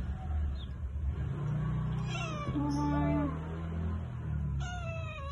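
Three-month-old kitten meowing while held for its first vaccination. One drawn-out cry comes about two seconds in, falling in pitch and ending on a held low note, and another cry starts near the end.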